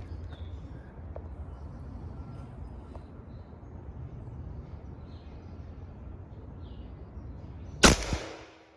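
A single shot from an AEA Challenger .50 calibre PCP air rifle near the end: one sharp, loud crack with a short tail and a smaller knock a fraction of a second after. Before it, a steady low rumble of outdoor background noise.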